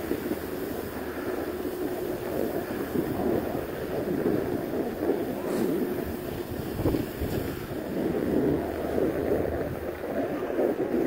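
Wind rushing over a phone microphone, mixed with the scraping hiss of sliding downhill over packed snow.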